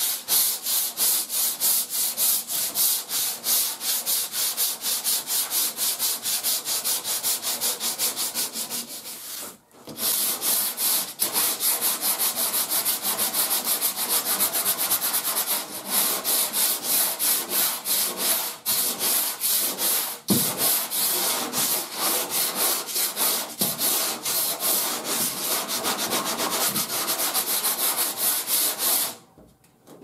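Body filler being hand-sanded with a sanding block in quick, even back-and-forth strokes. There is a brief pause about ten seconds in, and the sanding stops just before the end.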